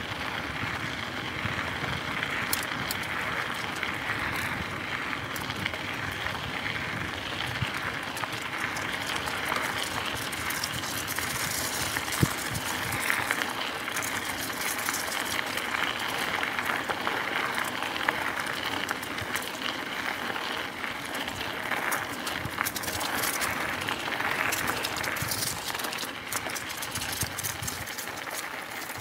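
Mountain bike rolling along a dirt trail: a steady rush of tyres over the ground and dry fallen leaves, with scattered clicks and rattles of the bike over bumps.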